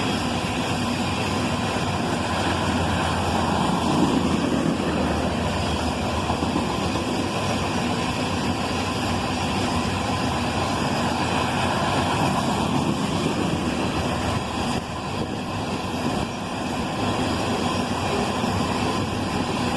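Freight cars of an iron ore train rolling past, a steady clatter and rumble of steel wheels on rail that dips slightly about two-thirds of the way through.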